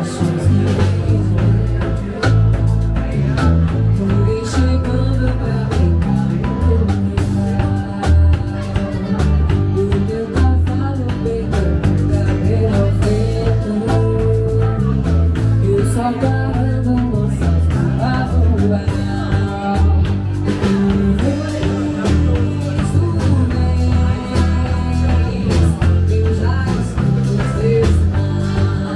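Music: a song with a singer, guitar and a walking bass line over a steady beat.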